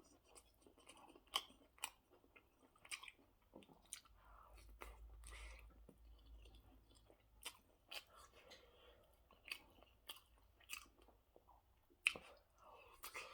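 Close-miked chewing of food, with irregular soft wet mouth clicks and smacks, a sharper click about twelve seconds in.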